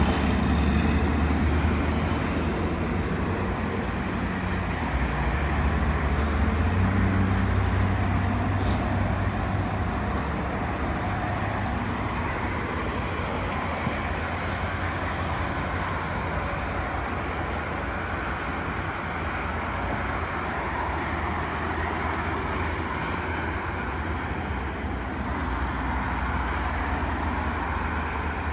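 Steady low engine rumble, loudest at the start and slowly fading.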